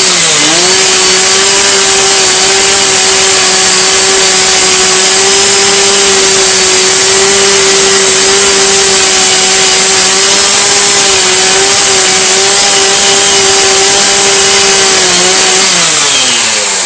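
Power tool motor running at a steady high speed, dipping briefly in pitch just after the start, then winding down near the end.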